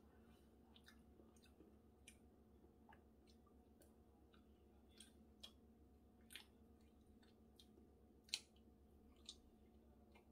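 Quiet eating sounds: scattered faint clicks of chopsticks against a ceramic bowl and soft chewing, with one sharper click about eight seconds in.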